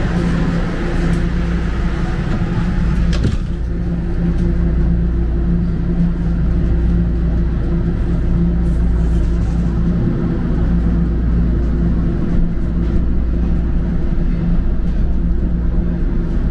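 Toronto Rocket subway train running, heard from inside the car: a steady low rumble under a steady motor hum, with a single sharp knock about three seconds in.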